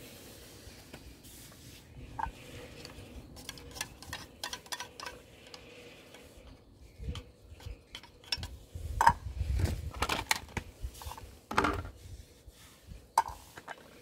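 A spoon clinking and scraping against food containers as cat food is dished out: a run of irregular small clicks and knocks, busiest and loudest in the second half.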